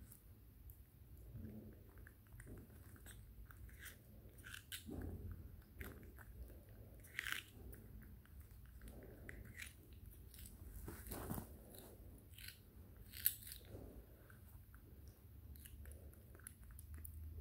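Baby macaque biting and chewing a piece of raw green vegetable: faint, irregular crunches, with one sharper crunch about three-quarters of the way through.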